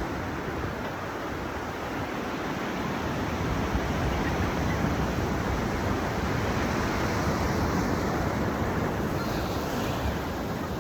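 Ocean surf breaking on a beach: a steady rush of wave noise that swells slightly midway.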